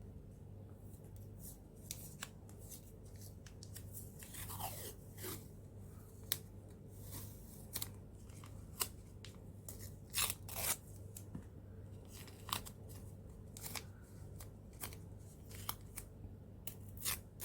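Washi tape and paper being handled and laid onto an art journal page: scattered small clicks and scratchy crinkles at irregular intervals, with a steady low hum underneath.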